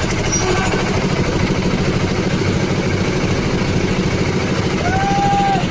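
Concrete mixer machine's engine running steadily, with an even low rumble and pulse. A short, high, slightly arched tone sounds about five seconds in.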